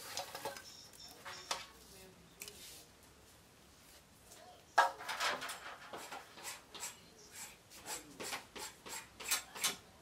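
Irregular scraping and rubbing with short sharp clicks. It is sparse at first, quieter in the middle, then starts again sharply about halfway through and grows busier and louder toward the end.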